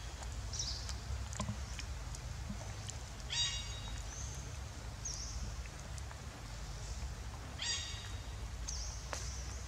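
Birds calling: two short, sharp high calls about four seconds apart, with brief higher chirps between them, over a steady low rumble.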